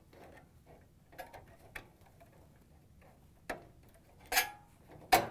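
Small plastic clicks and scraping as a wire harness connector is worked loose from a dryer's electronic control board, its locking tab released, with a longer rustle about four seconds in and a sharper click near the end.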